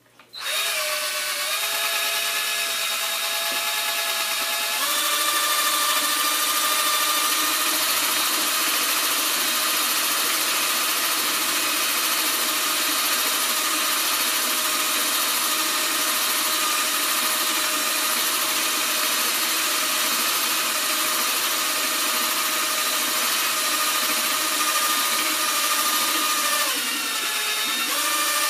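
Electric drill spinning a stirring wand in a glass carboy of wine, churning the dissolved CO2 out of it after fermentation (degassing). The motor whine starts right at the beginning, changes pitch and gets slightly louder about five seconds in, holds steady, and briefly dips and recovers near the end.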